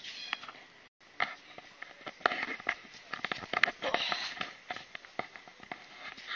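Irregular clicks and taps of footsteps and handling noise from a handheld camera carried through a rock-cut cave, with a brief faint voice. The sound drops out completely for a moment about a second in.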